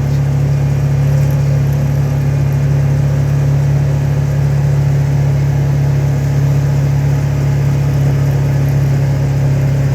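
Vehicle engine running at a steady speed, a constant low hum that holds the same pitch throughout.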